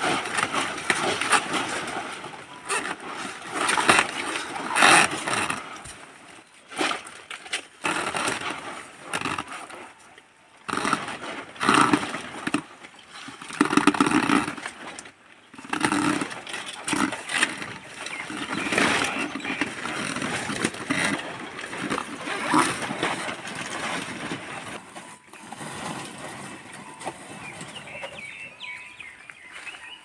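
Dry palm fronds rustling and crackling, with snapping and tearing of fibrous stalks, as a young fan palm is wrenched and pulled out of the ground by hand. The noise comes in uneven bursts.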